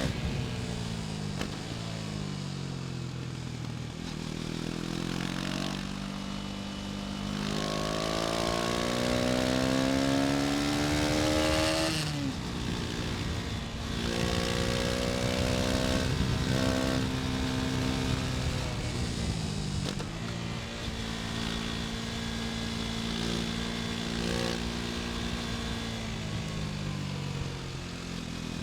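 KTM Duke 250's single-cylinder four-stroke engine under way: revs fall off at first, then climb steadily under acceleration to a peak about twelve seconds in, drop sharply, hold steady for a while and wind down again near the end, with steady wind rush throughout.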